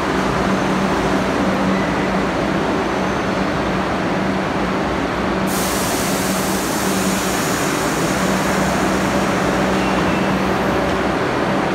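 R62A New York City Subway train pulling into the station and slowing to a stop: a steady rumble of wheels on rail with a low steady hum. A hiss joins in suddenly about halfway through.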